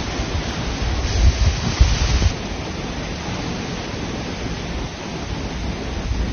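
Steady rushing noise, with heavier low rumbles during the first two seconds or so.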